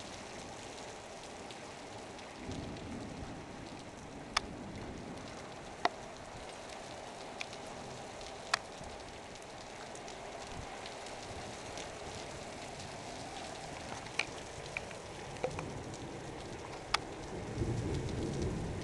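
Heavy thunderstorm rain falling steadily on a flat tiled rooftop, with a few sharp ticks of drops striking close by. A low rumble of thunder swells near the end and is the loudest part.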